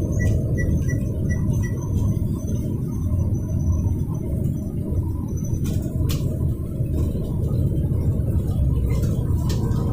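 Steady road and engine rumble inside the cabin of a moving vehicle, with two short clicks about six seconds in.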